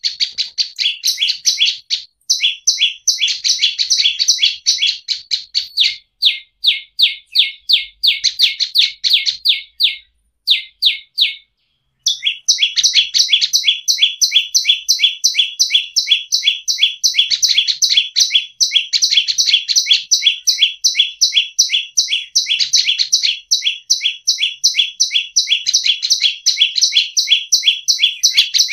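Olive-backed tailorbird (prenjak lumut) calling: a fast series of sharp, high chip notes, several a second, breaking off briefly a few times in the first twelve seconds and then running on without a break.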